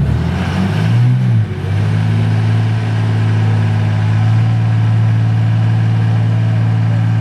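Ram dually pickup's engine held at steady high revs while its rear wheels spin in loose sand. The revs waver briefly in the first second or two, then stay level.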